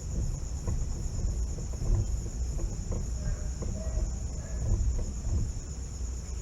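Crickets chirping steadily, over low rumbling and faint creaks from the Fiat Uno's manual rack-and-pinion steering being worked with its steering-shaft universal joint clamped. No clear clunk comes through: with the joint held, the knock is gone, which points to that joint rather than the rack.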